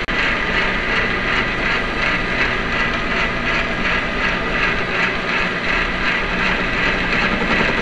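Small metal lathe running with the welded rifle receiver spinning in its chuck: a steady mechanical whir from the motor and gear train, with a regular pulse a few times a second.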